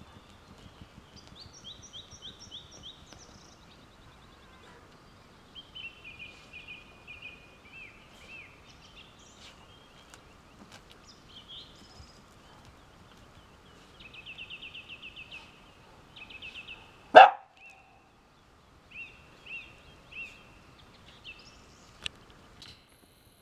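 A Jack Russell terrier gives a single short, loud bark about two-thirds of the way through. Birds sing throughout in short runs of quick, repeated high chirps.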